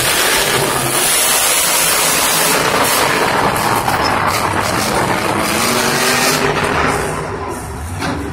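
Max-D monster truck's supercharged V8 revving hard at full throttle as the truck launches over a dirt jump. The engine eases off near the end.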